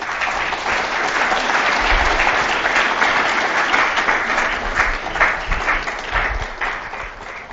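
Lecture-hall audience applauding steadily for several seconds after a talk, then dying away near the end.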